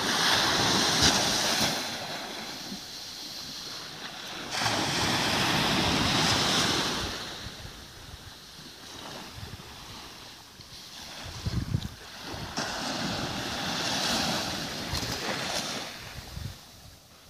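Small sea waves breaking and washing up a sandy beach, the rush swelling and fading about three times, with wind rumbling on the microphone.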